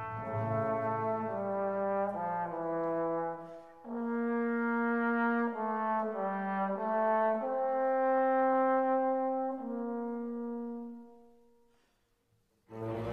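Background music: a slow instrumental melody of long held notes moving step by step, fading out about eleven seconds in, with another piece starting just at the end.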